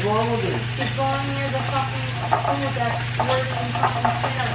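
Wire whisk beating a honey-mustard dressing in a glass mixing bowl: continuous scraping with sharp clinks of the wires against the glass. A melody of held, sliding notes and a steady low hum run underneath.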